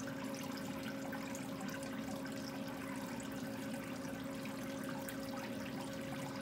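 Living wall's drip-irrigation water pump running with a steady hum while water trickles down through the felt.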